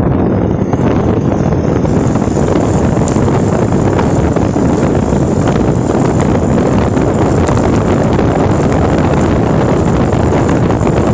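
Steady, loud wind buffeting the microphone of a camera carried by a rider moving at speed.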